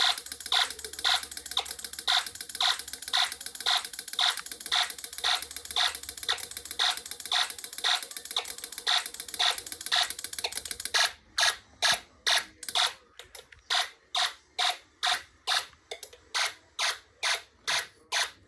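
Homemade Snap Circuits fire alarm sounding for a drill: a pulsed electronic alarm tone at about two beeps a second. A steady hiss under the beeps stops about eleven seconds in.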